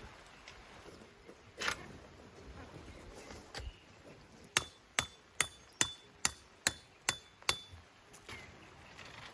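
A quick series of eight sharp metallic strikes, a little over two a second, each with a brief ring, starting about halfway through.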